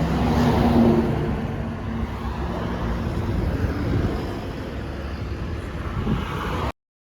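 Highway vehicle noise: a steady low rumble of engine and road, with a faint engine hum in the first few seconds. It cuts off abruptly near the end.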